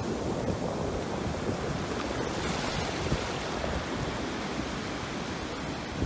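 Gentle surf washing on a sandy beach, a steady rushing noise, with wind buffeting the microphone.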